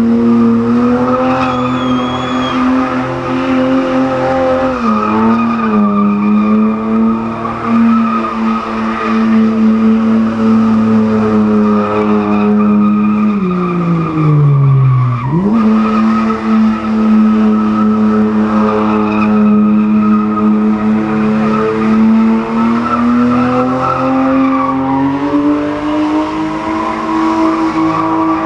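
BMW E30 325i's straight-six engine held at high revs while the rear tyres spin and squeal in a smoky burnout. The revs dip briefly about five seconds in, fall away around thirteen seconds and snap back up about two seconds later, then climb again near the end.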